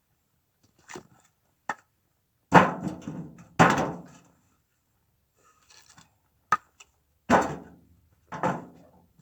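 Split firewood logs knocking down onto a woodpile as they are stacked: four heavy wooden thunks with a few lighter clicks between.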